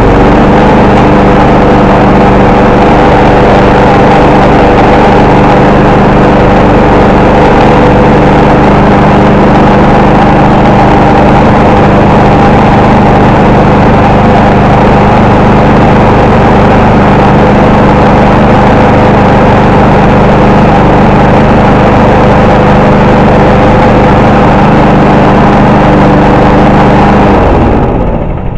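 Small single-cylinder engine of a new Subaru 21-inch self-propelled lawn mower, running loud and steady at constant speed on its first start out of the box. About a second before the end it is shut off and spins down, falling in pitch.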